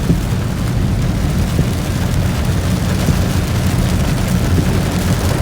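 Steady low rumble and hiss of a car driving in a heavy rainstorm, heard from inside the cabin.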